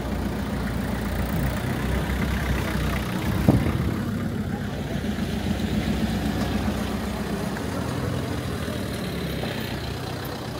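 An engine idling steadily, with one sharp knock about three and a half seconds in.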